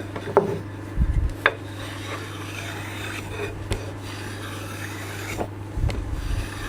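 Steel-bladed low-angle block plane scraping along the edge of an oak board, taking fine shavings, with a few knocks of wood and metal between strokes.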